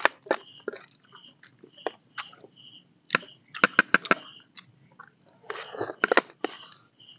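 Spoons clicking and scraping on plastic plates while two people eat, with chewing; the clicks come thickest about three to four seconds in and again near six seconds. A short high chirp repeats in the background.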